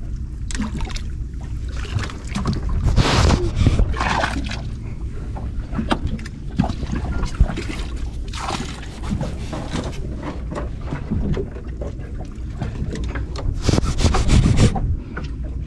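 Working sounds on a small boat while octopus traps are hauled: a steady low rumble with wind on the microphone, broken by scattered bursts of knocking and rubbing, the loudest about three, eight and fourteen seconds in.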